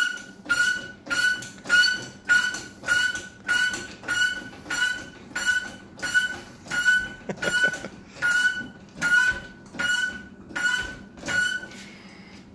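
A steady run of short squeaks, about one and a half a second, that stops near the end: a wrench working a C7 Corvette ZR1's leaf-spring height-adjustment bolt, squeaking on each stroke.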